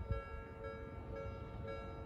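Japanese railway level-crossing warning bell ringing: an electronic ding alternating between two pitches, about two a second, over a low rumble at the start.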